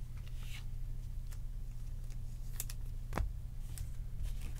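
Light clicks and taps of trading cards and plastic card sleeves being handled, the sharpest a little after three seconds in, over a steady low hum.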